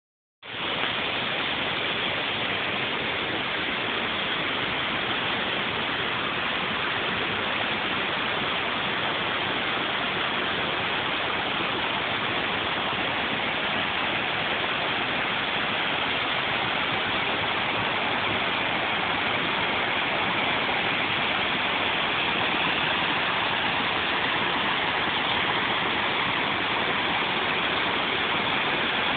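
Rocky stream rushing over stones and small rapids: a steady, even rush of water.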